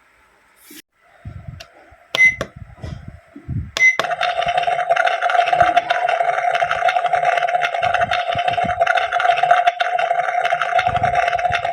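Toy induction stove playset: a few handling clicks and knocks, with two short electronic button beeps. About four seconds in, the toy's small speaker starts a steady electronic cooking sound effect: a hiss with a steady tone under it.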